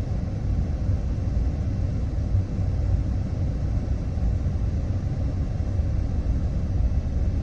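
Steady low rumble of a vehicle running, heard from inside the cab.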